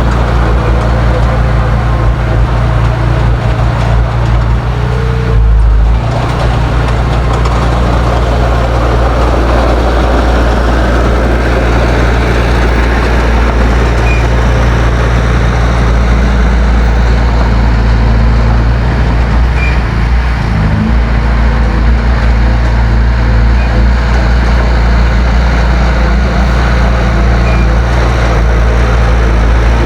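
Heavy diesel earthmoving engine running steadily and loudly, with a deep, even low note. Its sound changes briefly about five seconds in and shifts again around twenty seconds in.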